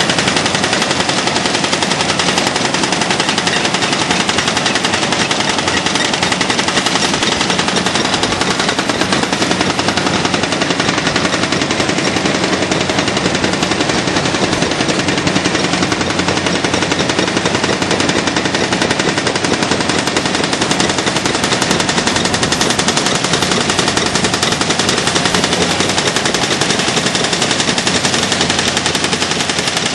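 Excavator-mounted hydraulic breakers hammering reinforced concrete in rapid, continuous blows.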